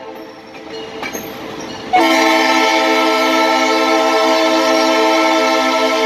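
Leslie RS3L air horn on the train's locomotive sounding for a grade crossing: after about two seconds of quieter train rolling noise, a long horn blast starts suddenly and holds steady.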